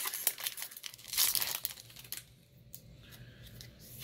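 Foil wrapper of a Pokémon trading-card booster pack crinkling and tearing as it is pulled open, loudest about a second in and dying down after about two seconds.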